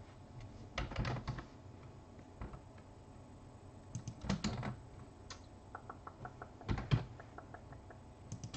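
Computer keyboard being typed on in a few short bursts of keystrokes with pauses between.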